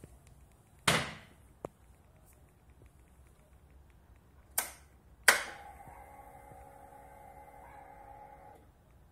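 Several sharp clicks and knocks, the loudest about halfway through. Then comes a steady electric hum for about three seconds that stops near the end: the fuel pump of a fuel-injected Junak M11 Cafe motorcycle priming after the ignition is switched on.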